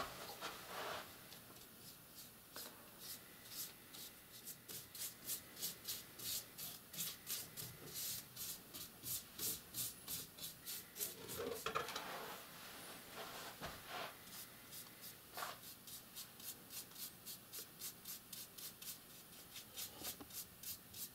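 Small paintbrush rubbing over a deer antler in quick, short strokes, a faint rhythmic brushing of about three strokes a second, as paint is blended into the bleached antler to restore its colour. A few soft handling sounds come in between.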